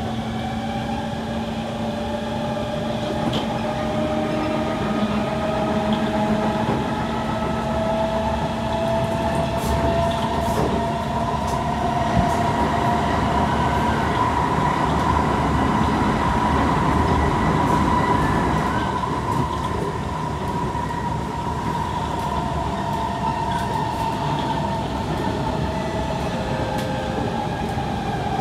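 Kawasaki C151 metro train's traction motors whining, heard from inside the car over the rumble of the wheels on the rails. The whine rises steadily in pitch as the train picks up speed, levels off about two-thirds of the way through, then eases slightly down.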